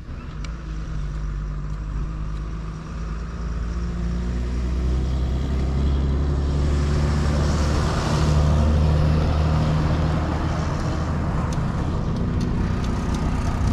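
A three-wheeled auto-rickshaw's engine running as it drives along the road, growing louder and loudest a little past the middle. A few light clicks near the end.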